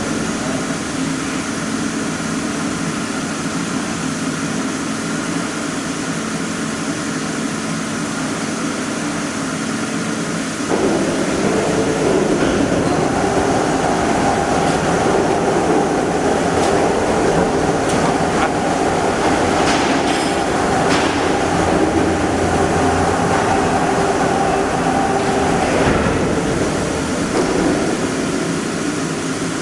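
A CNC pipe plasma cutting machine running, with a steel pipe turning on its roller supports: a steady mechanical rumble and hum that jumps louder about eleven seconds in and eases slightly near the end.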